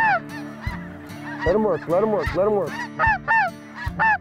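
Snow geese calling overhead: a rapid run of high, yelping honks from several birds, overlapping and repeating throughout.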